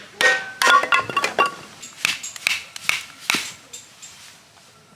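A quick series of sharp knocks and clinks, the first few ringing briefly, then sparser knocks with a short gap near the end.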